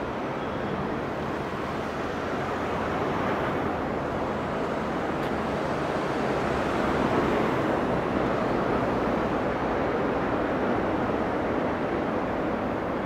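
Steady rush of road traffic from cars passing on a multi-lane street below, swelling slightly midway.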